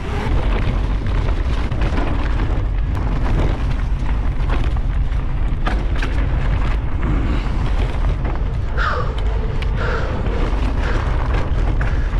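Wind rumbling over the camera microphone of a moving mountain bike, with tyre noise over asphalt, gravel and paved trail and scattered knocks and clicks from bumps.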